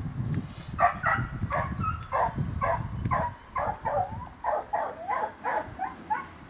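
Belgian Malinois puppy barking over and over, about a dozen short yapping barks at roughly two to three a second.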